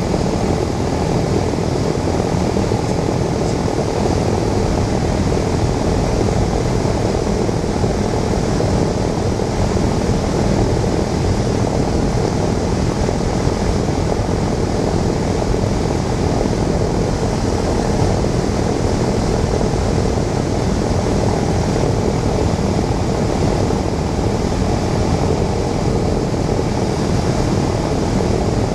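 Cessna 172's piston engine and propeller running steadily, heard from inside the cockpit as a loud, even drone with no change in pitch.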